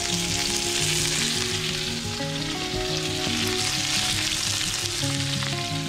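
Blackened red snapper and jolthead porgy fillets sizzling steadily in hot oil in a nonstick frying pan while a silicone spatula turns them.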